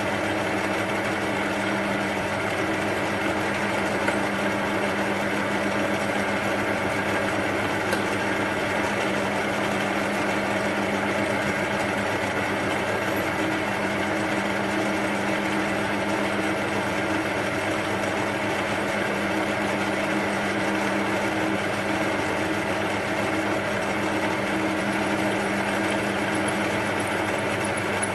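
Metal lathe running steadily, its motor and gears giving an even hum, while a number two centre drill is fed into hard stainless steel held in the chuck. A faint high whine comes in near the end.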